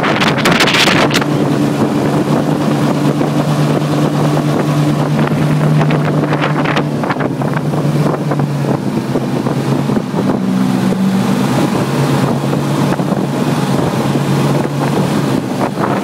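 Prodrive surface-drive outboard motor running steadily under way, its engine note shifting slightly in pitch now and then, with wind buffeting the microphone.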